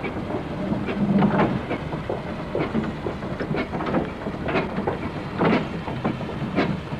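Steam traction engine running, its flywheel turning, giving a string of unevenly spaced exhaust chuffs and mechanical knocks over a noisy background.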